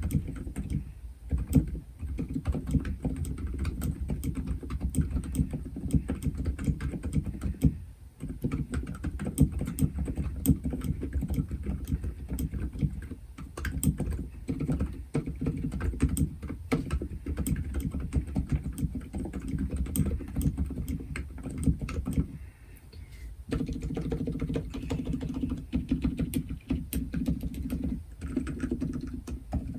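Continuous fast typing on a Womier K66 keyboard with Silent Alpaca silent linear switches, lubed with Krytox and fitted with films, on a bare desk without a deskmat. The keystrokes are muted and deep, with brief pauses about a quarter of the way in and about three-quarters through.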